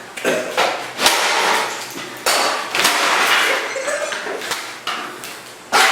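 Plastic upright vacuum cleaner being smashed: about five sharp hits, each followed by a short rattling clatter.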